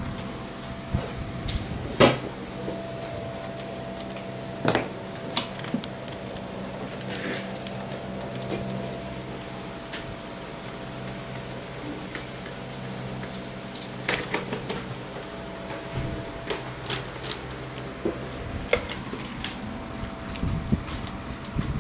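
Scattered clicks and knocks of hard metal and plastic parts being handled on a workbench, over a steady electrical hum.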